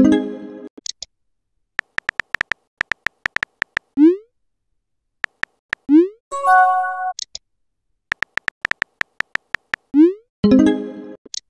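Text-messaging app sound effects: runs of quick keyboard typing clicks, each followed by a short rising whoosh as the message sends, and a brief chiming pop as a new message appears. The cycle repeats about three times.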